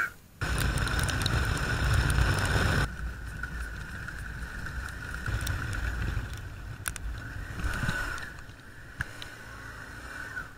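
Adventure motorcycle being ridden along a dirt forest track, its engine running steadily under the rider. Heavy wind rush on the microphone dominates for the first few seconds, then eases to a steadier engine drone with a constant whine.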